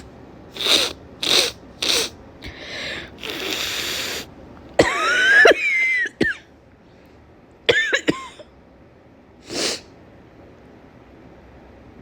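A woman with a cold coughing in a run of short bursts, about three close together near the start, then a louder, longer voiced fit about five seconds in and a few more coughs later on.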